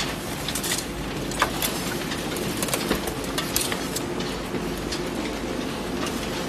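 Recycling-line machinery running: a steady mechanical drone with scattered sharp clicks and rattles.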